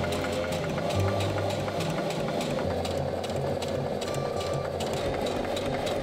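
Heavy-duty domestic sewing machine running steadily, its needle stitching rapidly along a coil zipper sewn onto tent fabric.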